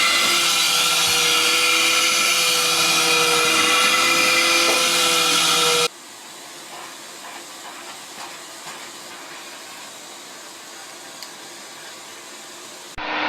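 Vacuum cleaner motor running steadily, a loud rushing noise with a whine over it. About six seconds in it cuts off abruptly, leaving a much quieter background with faint small noises.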